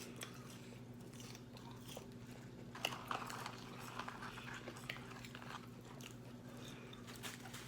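Faint chewing and crunching of McDonald's fast food, with small scattered mouth clicks and crackles, a few a little louder about three seconds in, over a steady low hum.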